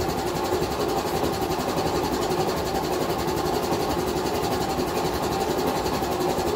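Steady mechanical drone of a running workshop machine, with a can of WD-40 being sprayed through its straw onto the seized engine's cylinder-head bolts.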